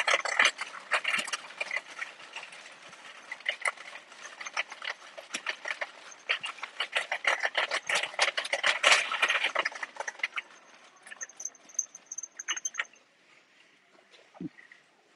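Metal shopping cart rattling and clattering as it is pushed over a tiled floor, thinning out and stopping about thirteen seconds in, with a thin high tone briefly near the end.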